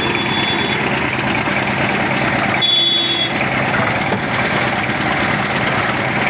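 Engine-driven concrete mixer running steadily, its drum turning. A short high beep sounds near the start and again about three seconds in.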